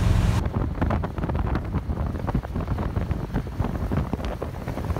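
Wind buffeting the microphone out the window of a moving bus, a gusty rumble over the bus's road noise. For the first half-second the bus's steady engine drone from inside the cabin is heard, then it cuts to the wind.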